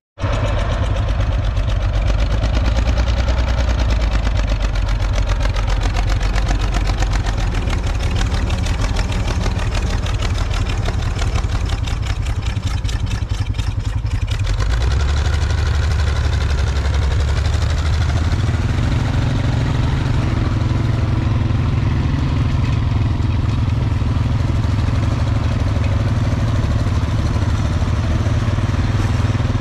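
Farmall 560 tractor's six-cylinder engine running steadily as it pulls a forage wagon across the field. The engine's low note shifts about halfway through and again a few seconds later.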